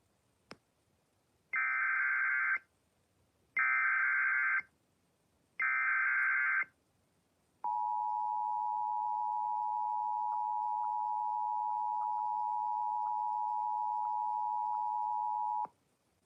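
Emergency Alert System tornado warning header: three roughly one-second bursts of SAME digital data tones, then the steady two-tone EAS attention signal held for about eight seconds before it cuts off sharply.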